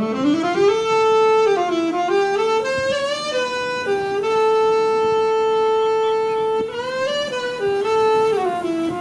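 Saxophone playing a slow, unaccompanied melody, its notes slurred and scooped into one another, with one long held note in the middle.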